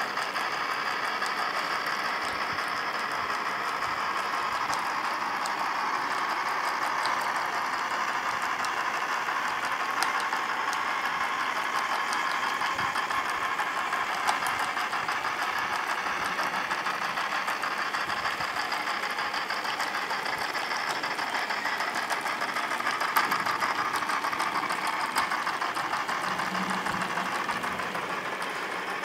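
Small toy motor driving a train of plastic gears, a steady whirr with a fast, dense clatter of plastic gear teeth meshing and a few louder clicks. It grows slightly fainter near the end as the toy drives away.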